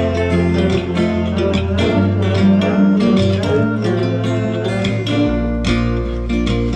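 Instrumental passage of a song: plucked guitar notes over a bass line that changes notes every second or so, with no singing.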